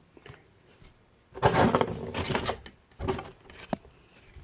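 Rustling and handling of paper and packaging as accessories are taken out of a box: a burst of rustling about a second and a half in, then a few light taps and clicks.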